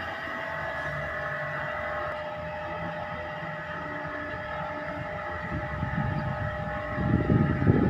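A steady machine whine made of several held tones. In the last two seconds it is joined by gusts of wind buffeting the microphone, a loud low rumble.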